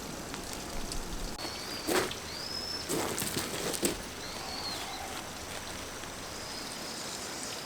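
Steady outdoor hiss with a few sharp clicks around the middle, and a bird giving three short chirps.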